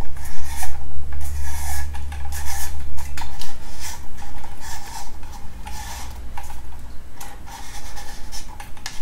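Large spiral compact fluorescent bulb being screwed into a plastic lamp-holder socket: irregular scraping and rubbing with many small clicks as the base turns in the thread. A low rumble runs under it for the first three seconds or so.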